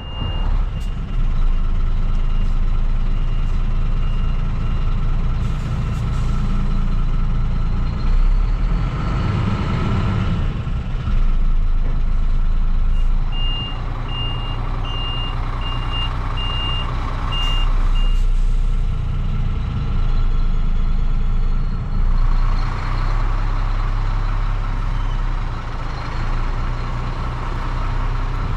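Heavy goods truck's diesel engine running as the truck and its large box trailer manoeuvre at low speed, with the engine note swelling twice. A reversing alarm beeps in two spells, near the start and again in the middle, about one and a half beeps a second.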